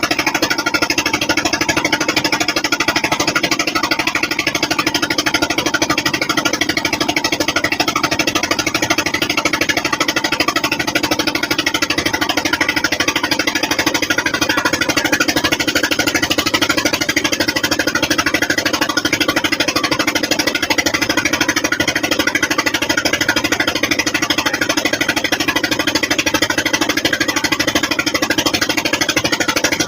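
A river boat's engine running steadily with a rapid, even chugging beat.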